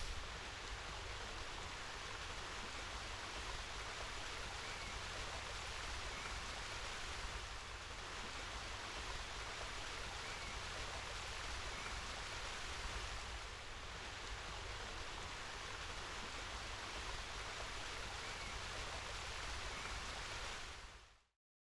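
Steady rushing of water from a small cascade tumbling over rocks into a pond, an even hiss that fades out just before the end.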